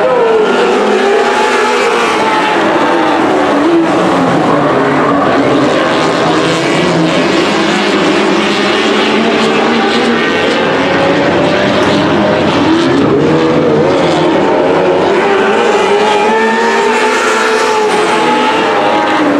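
A field of sprint cars racing on a dirt oval, several engines running together. Their notes rise and fall as the cars come round, and the sound stays loud and steady throughout.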